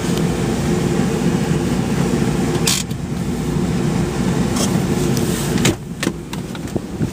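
Steady rumble of a Honda CR-V heard from inside the cabin. About five and a half seconds in, a sharp click sounds and the rumble falls away, leaving fainter scattered clicks.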